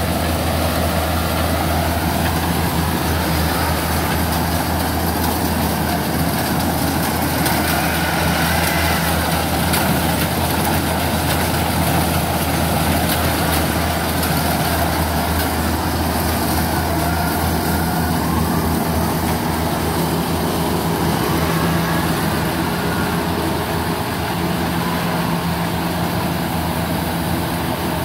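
Kubota DC70 rice combine harvester's diesel engine running steadily as the machine cuts and threshes rice, a constant low hum.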